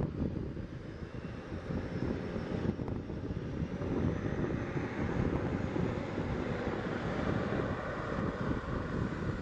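Twin turboprop engines of an ATR 72-600 airliner running as it taxis and turns on the runway, a steady rumble with a faint whine that climbs slightly in pitch from about halfway through.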